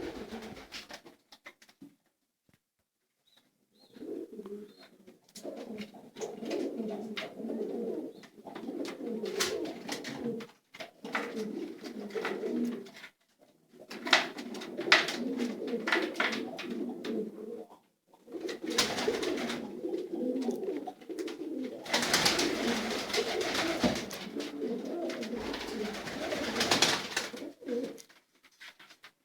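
Several domestic pigeons cooing together, starting a few seconds in and going on in long stretches with brief pauses, mixed with scattered clicks and scuffling noise.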